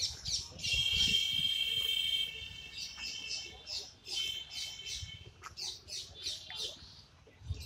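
Birds chirping in the park trees, many short high calls in quick succession. A louder, drawn-out buzzy call of several tones lasts under two seconds about half a second in, and a shorter one comes around four seconds.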